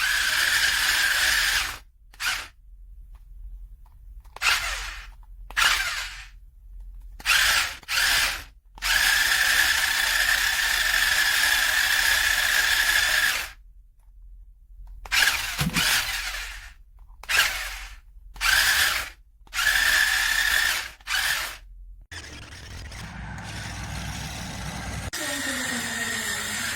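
Toy RC monster truck's electric drive motors whining in about a dozen sudden bursts as it is driven in spurts, some brief and one lasting about five seconds. Near the end the bursts stop and a steady hiss takes over.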